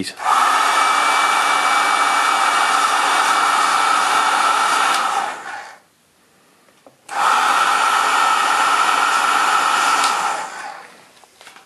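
Hair dryer blowing hot air onto the acrylic-painted eyes of a fishing lure to heat-set the paint: it runs steadily for about five seconds, is switched off for a second or so, then runs again for a few seconds before winding down.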